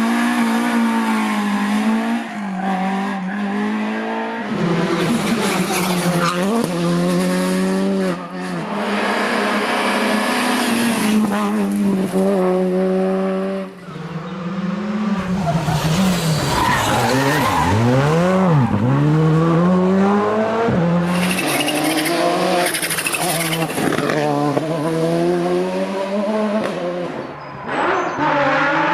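Rally car engines revving hard, their pitch repeatedly rising and falling with throttle and gear changes, dipping low and climbing back sharply around the middle, with tyres squealing and skidding.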